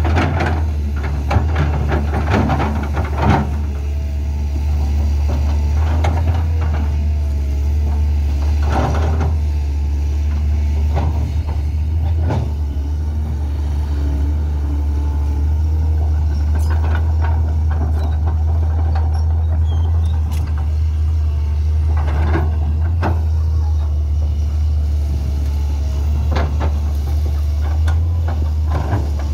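Matador ME220 crawler excavator's diesel engine running steadily, with branches and brush cracking and snapping every few seconds as the bucket tears through the shrubs.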